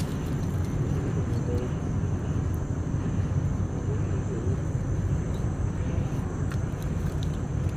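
Steady low rumbling background noise, with a few faint clicks near the end.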